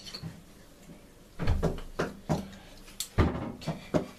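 Irregular short knocks and clatters of things being handled in a small tiled bathroom, starting about a second and a half in, with the loudest knock about three seconds in.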